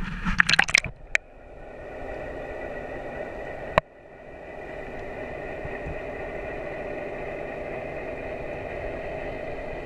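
Water splashing in the first second, then a steady mechanical hum with several held tones heard through the water: a boat's engine and propeller carrying underwater.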